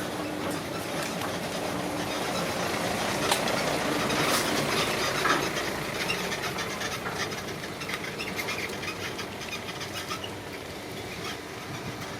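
Excavator running with metallic clanking and clicking over the engine noise, growing louder for the first few seconds and then slowly fading.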